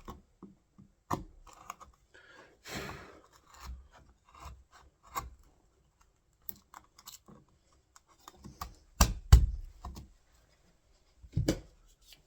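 Door latch being worked into the mortise in a wooden door's edge: scattered clicks, scrapes and knocks of metal against wood, with a short rasping scrape about three seconds in and the heaviest knocks about nine seconds in and again near the end.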